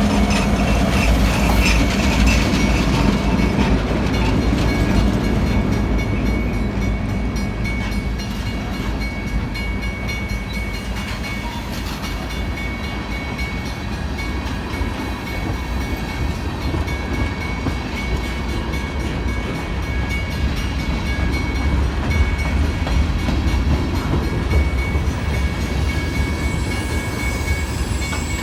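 Freight train rolling past: a steady rumble and clatter of steel wheels on the rails, with a thin, steady high ring over it. It is a little louder in the first few seconds.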